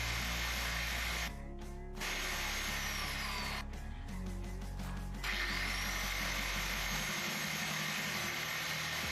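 Angle grinder with a cut-off disc cutting through 3 mm steel sheet on a sliding guide rig: a steady grinding hiss with a high motor whine that sags under load and picks up again. The grinding cuts out briefly twice, under background music.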